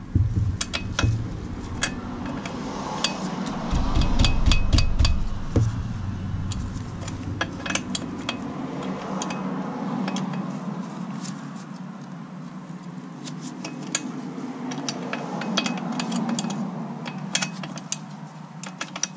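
Wrench clicking and clinking against the metal chain adjuster nuts on a Honda Grom's swingarm as they are loosened, a scattered run of short sharp metallic clicks with some handling rumble about four seconds in.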